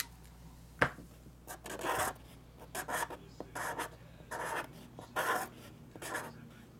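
Trading cards and their cardboard packaging being handled. There is a sharp click a little under a second in, then a run of short rubbing swishes of card sliding against card, about one every three-quarters of a second.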